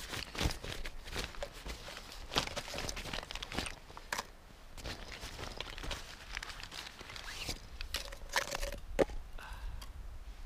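Rustling and crinkling of a nylon bag being rummaged through, with scattered clicks and knocks as plastic containers are taken out and set down.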